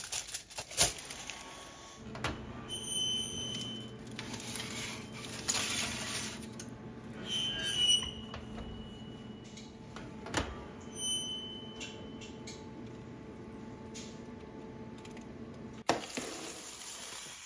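Electric wall oven in use: its control panel gives three short beep signals, with a steady hum while it runs and a few knocks of the oven door and the foil-lined baking pan.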